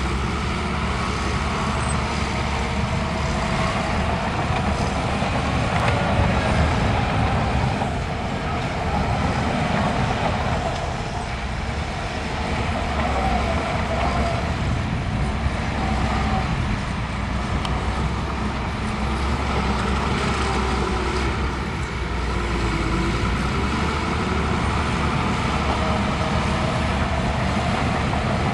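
Heavy diesel earthmoving machinery running steadily under load, with a wavering higher whine riding over the low engine noise.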